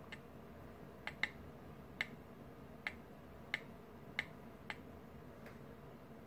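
About nine short, sharp clicks at uneven intervals, one pair close together about a second in, over a faint steady hiss: fingertips and nails tapping on the smartphone that is recording.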